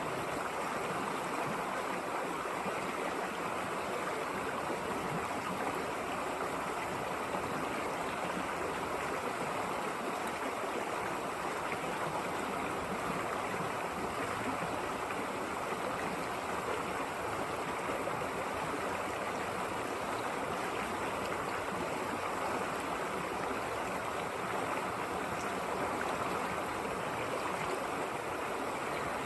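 A river running over rocks: a steady, even rush and babble of flowing water.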